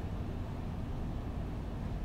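Steady low rumble of residential-area ambience, an even background hum with no distinct events.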